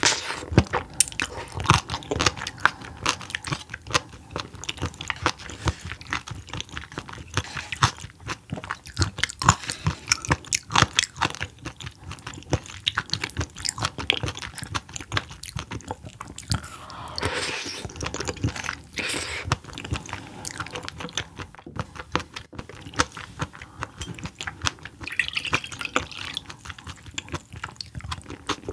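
Close-miked chewing and wet mouth sounds of a person eating seafood: a dense, uneven run of small sharp clicks and squelches.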